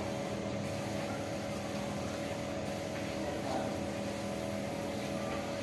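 Steady machine hum with several held tones, even in level throughout.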